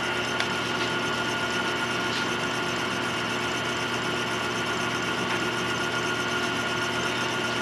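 Lathe motor running at a steady speed, spinning a ring on its mandrel: an even hum with a faint high whine.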